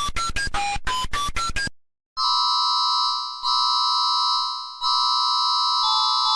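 Synthesized emergency alert alarm: a quick run of short electronic beeps stepping up and down in pitch, then after a brief silence a loud, steady alarm tone of several pitches held together. The tone fades out and restarts twice, and a lower pitch joins near the end.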